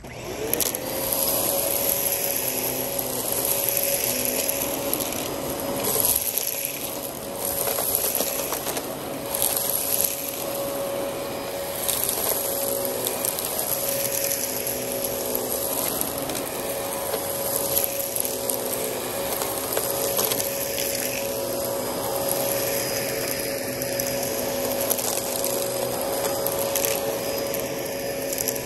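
Dyson DC14 upright vacuum cleaner switching on and spinning up to a steady motor whine, then running as it sucks up a pile of dry dirt and fluff from concrete, with scattered clicks and rattles as debris is drawn in.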